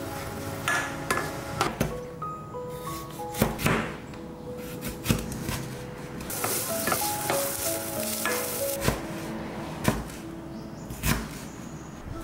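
Background music over kitchen sounds: diced onions sizzling in oil in a frying pan as a spatula stirs them, then a chef's knife knocking on a plastic cutting board as it dices bell pepper, about one chop a second.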